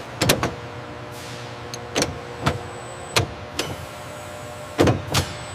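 Steady machine hum with a series of sharp mechanical clicks and clunks at irregular intervals, about eight in all: a quick pair near the start, four more spread through the middle, and another pair near the end.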